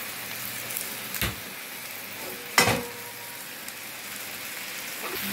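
Chicken tikka sizzling in butter and ghee on a hot tawa, a steady frying hiss. A spoon knocks against the pan twice, about one second in and, louder, about two and a half seconds in.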